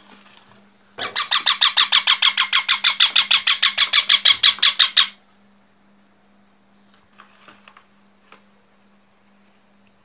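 Young parakeet giving a rapid run of harsh squawks, about eight a second, for some four seconds from about a second in, then only a few faint clicks.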